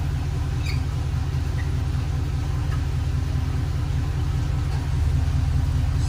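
2019 Ford F-250 Super Duty pickup's engine idling steadily, a low even rumble.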